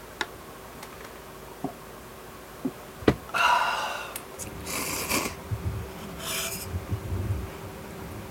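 Ramen noodles and broth being slurped in three short noisy slurps, after a few light clicks of utensils. A faint steady hum sits underneath.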